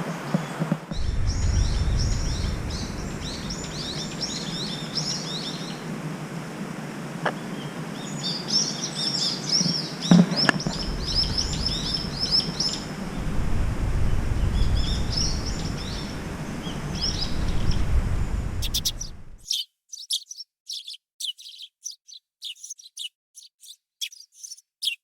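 Small birds chirping and twittering in quick repeated notes, over a low uneven rumbling noise. About three-quarters of the way through, the rumble cuts off suddenly and only the chirps remain.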